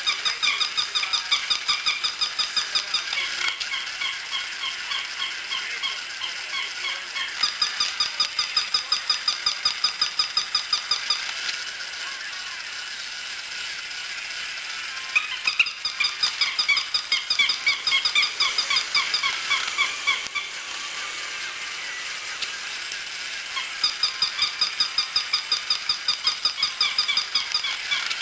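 Battery-operated plush toy dogs yapping in rapid electronic barks, about four a second, in runs of a few seconds with short pauses between.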